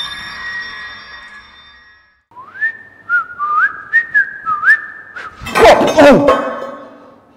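Ringing tones fade out over the first two seconds. A man then whistles a short tune with sliding notes, with a few light taps of footsteps on the tile panels. About five and a half seconds in comes a loud crash with a quickly falling tone as he stumbles down onto the broken floor panel.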